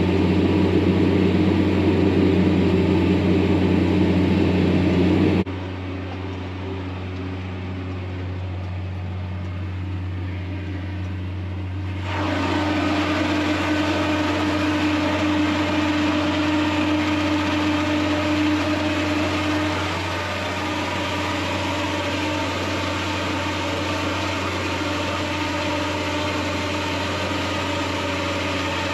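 Engine of a farm vehicle hauling a load of manure, running at a steady speed with a constant low drone. The sound changes abruptly twice, about five and twelve seconds in, getting quieter and then louder again.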